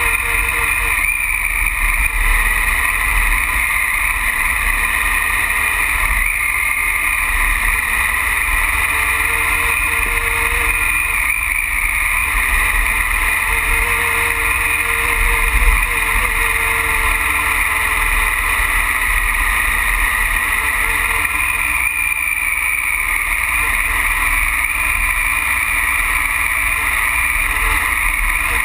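Triumph Tiger Explorer adventure motorcycle riding along a gravel track, heard from a camera mounted low on the front fork: a steady, muffled engine and wind rumble with a constant hiss and a faint engine tone that comes and goes.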